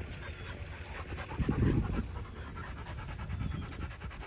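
Dogs panting quickly and evenly at close range, Labrador retrievers with a Great Pyrenees, with a brief low thump about a second and a half in.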